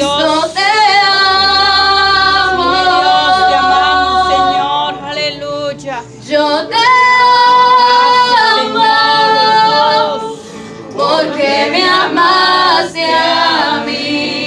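A woman singing a Spanish-language worship song into a handheld microphone, in long held phrases with a brief pause about two-thirds of the way through.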